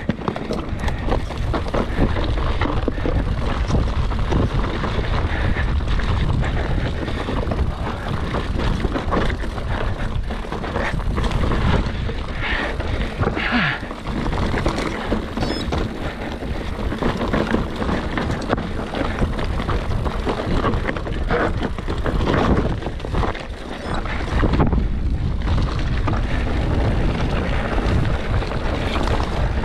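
Wind buffeting the microphone of a mountain bike camera while riding downhill over a rocky trail, with the bike's tyres and frame knocking and rattling over the stones.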